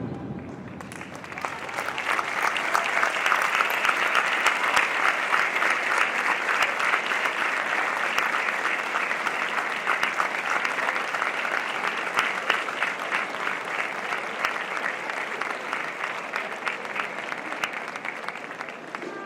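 Audience applause, picking up about a second in and slowly tapering off.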